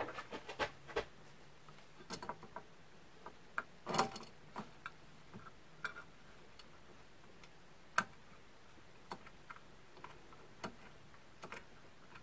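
Light, irregular metal clicks and taps of an Allen key catching on and turning a mounting screw under a metal spindle mount, with sharper clicks about 4 and 8 seconds in.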